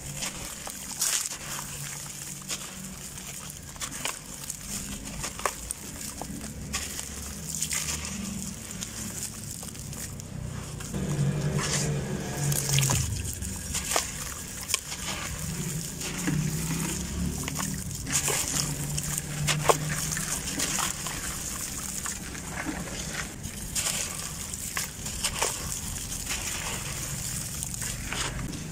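Gritty, crumbly blocks being broken apart by hand and crumbling into a basin of water, with soft crackles and sloshing and splashing as the pieces and hands move through the water.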